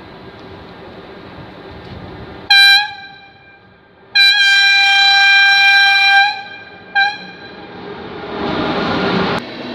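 Electric locomotive horn sounding three blasts: a short one, a long one of about two seconds, and a brief one. Then the rumble of the locomotive and its coaches running past close by grows louder and cuts off suddenly near the end.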